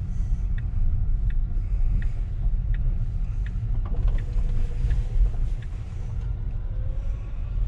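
Tesla Model S Plaid driving, with a steady low road and tyre rumble in the cabin. A regular tick about every two-thirds of a second, typical of the turn indicator, runs through much of it.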